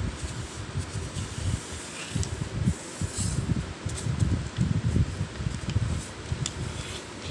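A sheet of paper rustling and being creased flat by hand on a tabletop, with soft rustles and ticks, clearest about three seconds in. Under it a room fan runs with an uneven low rumble, which is the loudest sound.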